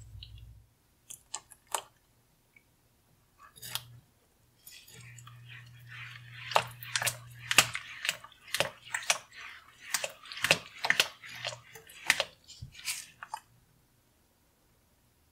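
Thick Alfredo sauce being stirred and folded with a spatula in a pan: wet, sticky squelches and smacks, a few at first, then a dense run for about nine seconds that stops shortly before the end.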